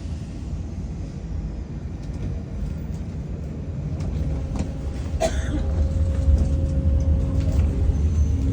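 BN M3 metro train cabin rumbling low, with a sharp clank about five seconds in. After the clank a steady motor tone sets in and the rumble grows louder as the train gets under way.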